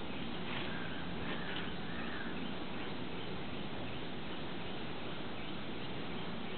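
Steady outdoor background hiss with a few faint bird chirps in the first two seconds.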